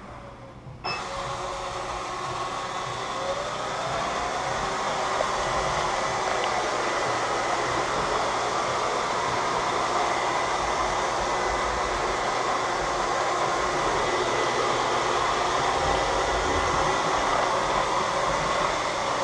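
Robot vacuum cleaner switching on about a second in, then running steadily: its suction motor and brushes give a continuous whirring noise that builds a little over the next few seconds and then holds.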